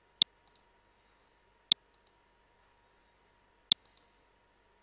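Computer mouse button clicking three times, each a single sharp click, about 1.5 and 2 seconds apart.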